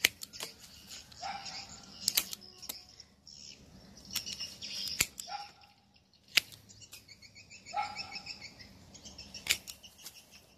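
Hand pruning shears snipping shoots off a yellow apricot (mai vàng) tree: sharp clicks at uneven intervals, about eight in all, each one the blades closing through a twig. Birds chirp in the background between the cuts.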